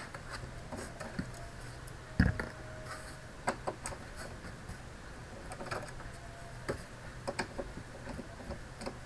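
Screwdriver removing small screws from the plastic back of an all-in-one computer: scattered light clicks and ticks, with one louder knock about two seconds in, over a low steady hum.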